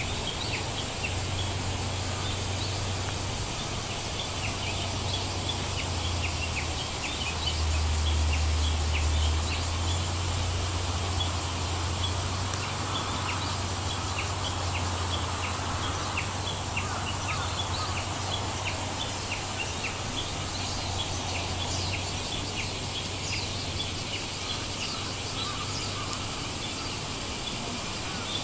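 Steady rain, with many short, high ticks of drops landing throughout and a low steady hum underneath that swells for a few seconds about a third of the way in.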